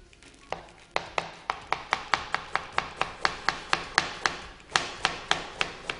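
Chef's knife shredding cabbage on a cutting board: a quick, even run of chopping strokes, about four a second, starting about half a second in and stopping just before the end.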